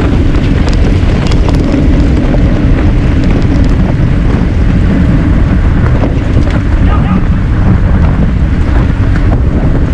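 Steady wind buffeting on a bicycle-mounted action camera's microphone at racing speed, with a few faint clicks through it.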